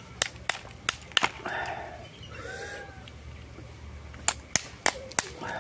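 Grilled oyster shells clicking and clacking together as they are picked through and handled: a quick run of sharp clicks in the first second or so and another run near the end.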